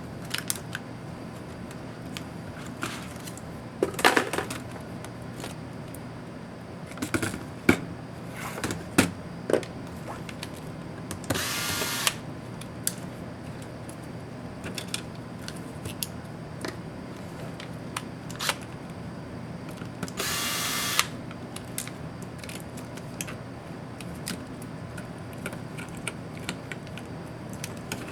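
A small electric screwdriver runs twice, each time for under a second, driving laptop screws. Scattered clicks and knocks of small plastic and metal parts and tools being handled come in between.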